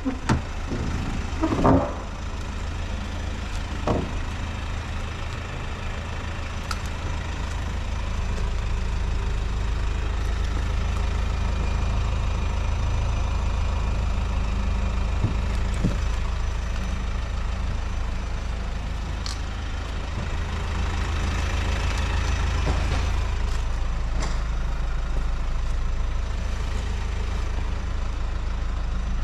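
Steady low mechanical rumble, like an engine idling, with a few scattered short knocks and clicks.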